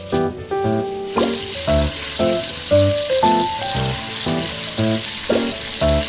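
Pork ribs sizzling in hot cooking oil as they are laid into a frying pan; the sizzle starts about a second in and keeps going. Background music plays over it.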